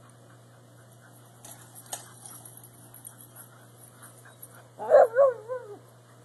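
A dog at play gives a short run of high barks and yelps with a wavering pitch about five seconds in, preceded by a brief rustle and a knock around two seconds in.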